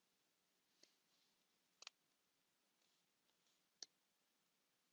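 Near silence with faint, sharp clicks: one about a second in, a quick double click near two seconds, and one near four seconds.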